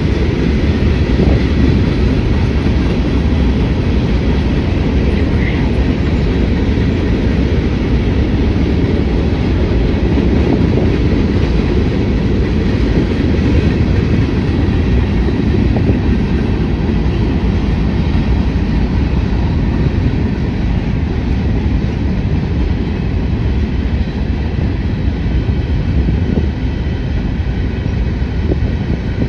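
Freight train cars rolling past: a steady rumble of steel wheels on the rails.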